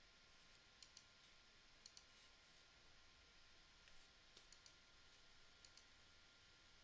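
Near silence with a handful of faint computer mouse clicks, several coming in quick pairs.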